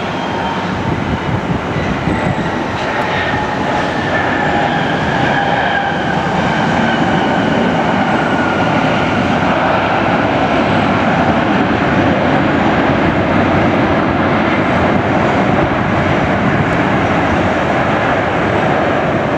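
Jet engine noise from a landing Boeing 757-232's two Pratt & Whitney PW2037 turbofans: a loud, steady roar with whining tones that fall slowly in pitch. It grows louder over the first few seconds, then holds.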